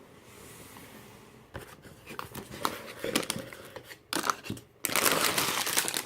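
Plastic bags of Lego pieces being handled as the set's box is unpacked: a few scattered clicks and rustles, then from about five seconds in a loud, dense crinkling of the bags.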